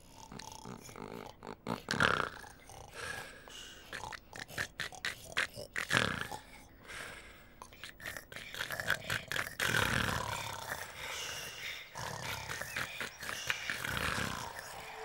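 Snoring and grunting from sleeping Teletubbies: a low, falling snore every few seconds, with scattered clicks and snuffles in between.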